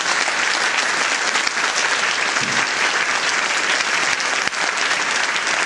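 An audience applauding steadily, a dense clapping that goes on without a break.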